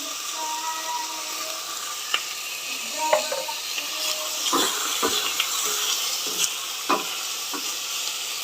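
Sliced chicken breast and garlic sizzling in olive oil in a hot pan, with a utensil stirring and knocking against the pan every second or so.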